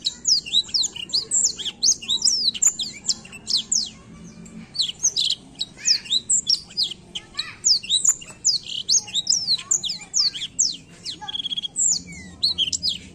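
Blackthroat (black-throated canary) singing a fast, continuous song of high, steeply falling whistled notes, several a second, with a short pause about four seconds in and a brief buzzy trill near the end.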